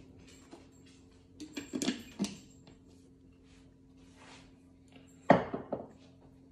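Light clinks and knocks of painting supplies handled on a tabletop: a cluster of small clicks about two seconds in, then one sharp knock a little past five seconds, followed by a few smaller ones.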